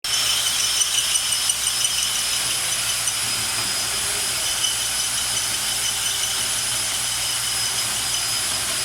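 Portable line-boring machine running steadily: an even hiss with several steady high-pitched whines, and a few light rattling ticks in the first two seconds.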